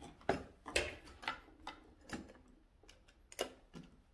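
Irregular clicks and knocks of a toddler handling toys: small pieces from a picture-matching board and a wooden latch box, tapping on a wooden floor. The clicks are loudest in the first second or so.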